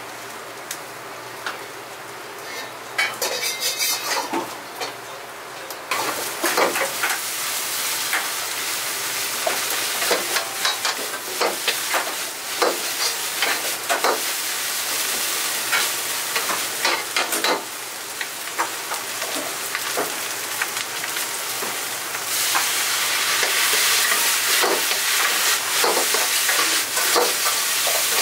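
Fried rice being stir-fried in a wok: a steady frying sizzle with frequent sharp clanks of the ladle against the wok. It starts about six seconds in and grows louder near the end, after a few scattered kitchen clinks before it.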